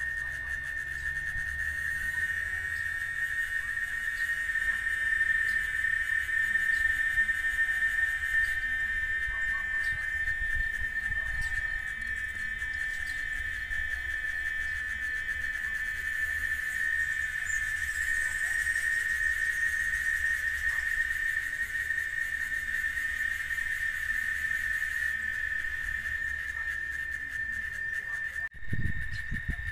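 Cicada (chicharra) song: a steady, shrill drone held on one high pitch without pause. It drops out briefly near the end, then resumes.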